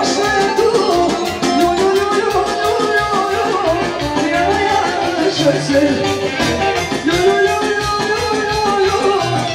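Live folk dance music from a band led by an accordion, playing continuously with a steady beat.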